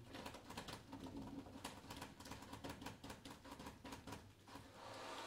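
Quick, irregular soft clicks and taps, like keys being tapped, with an even soft hiss coming in near the end.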